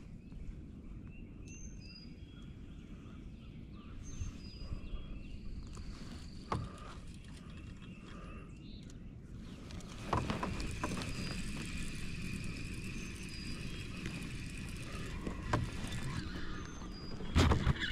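Outdoor lakeside ambience: short high chirping notes over a low steady rumble. About ten seconds in, a louder whirring noise with a steady high whine starts, and a few sharp clicks or knocks come near the end.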